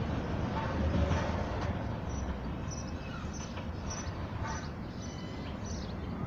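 Low rumble of a freight train slowly fading as it moves on, with small birds chirping in short high notes through the second half.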